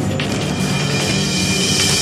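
Background news music with steady sustained tones, a hissing swell building toward the end.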